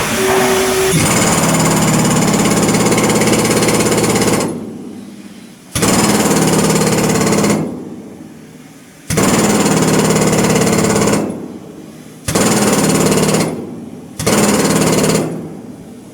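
Shipyard power tool working on steel: a rapid hammering rattle in five bursts of one to three seconds, stopping briefly between them.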